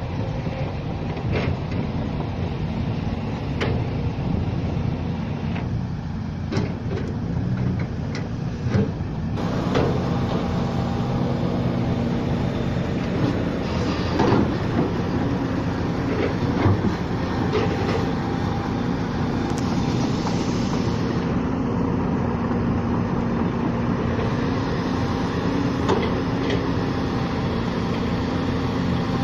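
Diesel engines of an Isuzu dump truck and a Volvo EC210B excavator running steadily at a worksite, with scattered clanks and knocks; the noise gets louder about a third of the way in.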